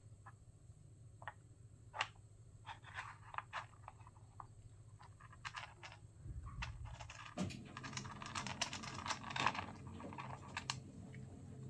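Scattered light clicks and taps of plastic as two cats paw and nose at the covers of a plastic treat puzzle. About seven seconds in, an automatic litter box starts its cycle, and its motor hums steadily under the clicks.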